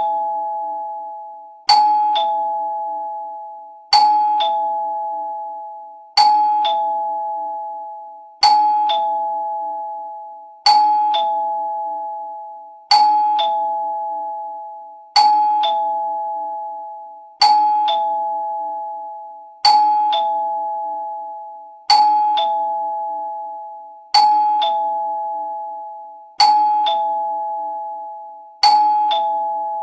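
Two-note ding-dong doorbell chime ringing over and over: a higher note, then a lower one about half a second later, each struck and left to ring away. It repeats about every two and a quarter seconds, some thirteen times.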